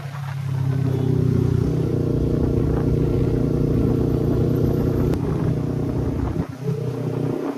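Kawasaki Ninja 300's parallel-twin engine running through a loud aftermarket exhaust, holding a steady note. It dips briefly about six and a half seconds in, then picks up again.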